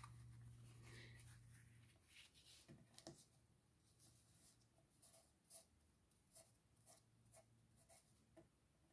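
Faint handling sounds of fabric being folded over and rubbed down onto a glued hexagon cover, with scattered light taps and clicks.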